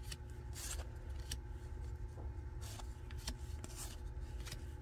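Cardboard baseball cards sliding and rubbing against one another as they are flipped through by hand: a series of short papery swishes with a few light clicks, over a steady low hum.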